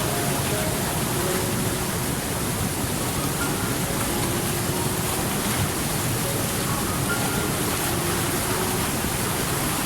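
Steady rushing of water, an even hiss like a river or rain, with soft, sparse notes of gentle background music held over it.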